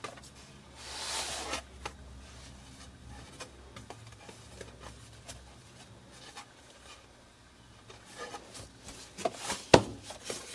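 Hands handling a children's board book: thick cardboard pages rubbing and being turned, with a soft swish about a second in and scattered small taps. A sharp knock near the end, as the book is shut, is the loudest sound.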